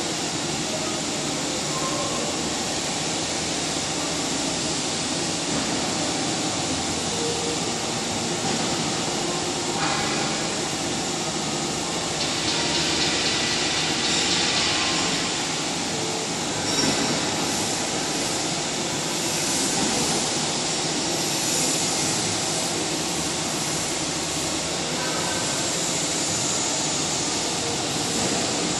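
Vertical automatic stone profiling machine running steadily as a stone slab is fed through its processing heads. Its continuous mechanical running noise carries a hiss that turns brighter for a few seconds about halfway through.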